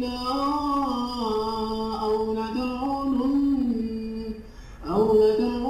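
A man reciting the Quran in drawn-out melodic tajweed style, holding a long ornamented note that bends up and down after 'la-nukhrijannakum min arḍinā'. The recitation is a recording playing back in Audacity. The voice drops away briefly for a breath about four and a half seconds in, then comes back in.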